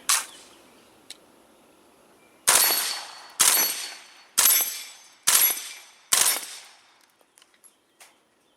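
Five suppressed 9mm shots from an HK MP5 fitted with the short Pilum M suppressor, fired one at a time about a second apart, each cracking sharply and trailing off. A few faint clicks follow near the end.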